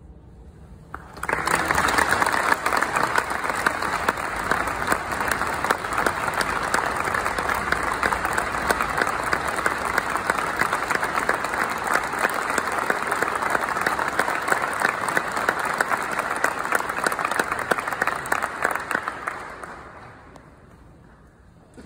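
Audience applause that breaks out suddenly about a second in, holds steady, then dies away near the end.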